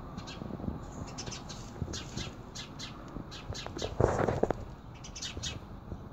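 Birds chirping in short, high, quickly repeated calls, with a brief louder rustle about four seconds in.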